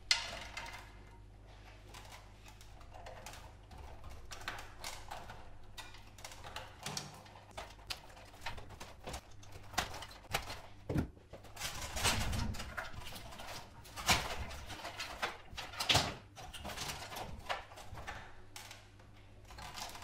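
Irregular clicks, knocks and rustles of gloved hands pulling cable connectors and handling the wiring and plastic inside a CRT television chassis, with a few louder knocks in the second half over a steady low hum.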